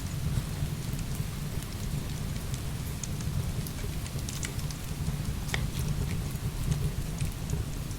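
Heavy rain falling steadily with a deep low rumble beneath it, and a few sharp ticks now and then, the clearest about five and a half seconds in.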